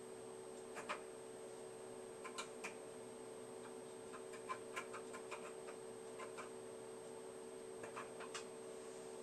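Faint clicks of computer keyboard keys pressed one at a time and in short runs, over a steady electrical hum.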